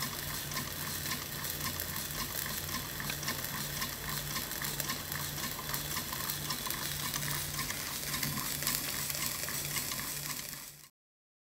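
Homemade gamma-type Stirling engine running slowly, its linkages and crank making a steady rhythm of light clicks over a constant hiss, a sound like an old engine. The sound cuts off abruptly near the end.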